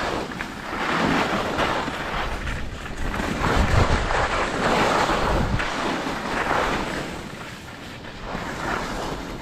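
Wind buffeting an action-camera microphone while skiing, mixed with the hiss of skis sliding over snow that swells and fades in waves. The low rumble of the wind is strongest about four to five seconds in.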